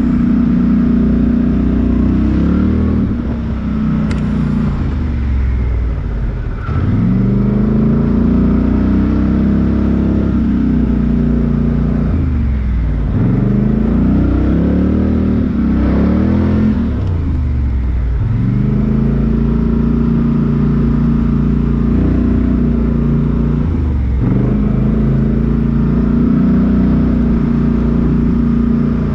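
Off-road vehicle's engine working hard, its revs falling away and climbing back again and again, with a run of quick rev swings midway.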